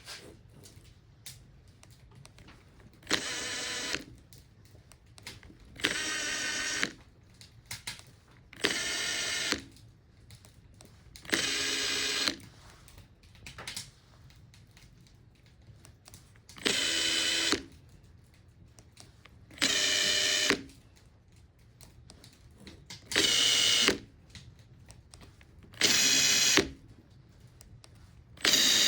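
Makita TP131D cordless 4-mode impact driver being test-run after repair and cleaning, its motor whining in about nine short trigger pulls of under a second each, a few seconds apart, with light handling clicks in between.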